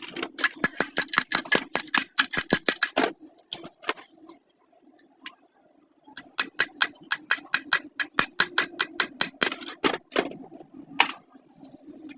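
Sewing machine running in two spells of rapid, even clicking, about eight clicks a second, over a steady low hum. It stops for about three seconds in between.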